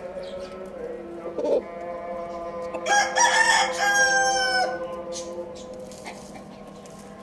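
A rooster crows once, about three seconds in: a single crow of nearly two seconds that starts rough and ends on a held note.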